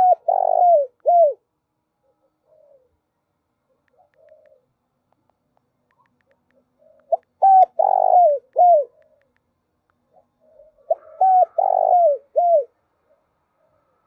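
Spotted dove cooing: three phrases of a few short, arching notes each, one at the start, one about seven seconds in and one about eleven seconds in. Faint, softer notes fall between them.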